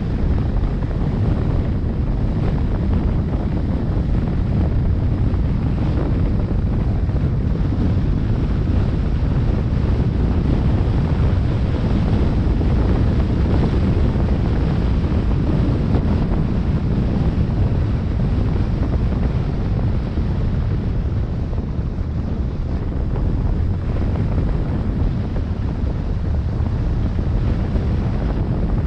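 Steady, loud wind buffeting the microphone, a deep rumbling noise with no breaks.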